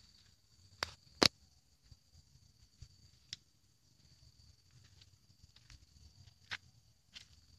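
A few short, sharp clicks and knocks, the loudest about a second in, over a faint steady high-pitched whine.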